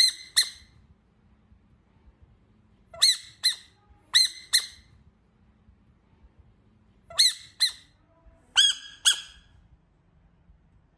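A frog squeaking: short, high-pitched squeaks in five quick pairs, each pair about half a second apart, with pauses of one to three seconds between pairs.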